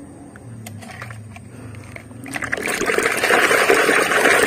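Small handling clicks at first, then, from about halfway through, water splashing and sloshing loudly in a basin as a toy is scrubbed by hand with a sponge.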